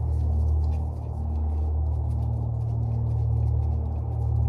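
Steady low machine hum, with faint light clicks and taps over it.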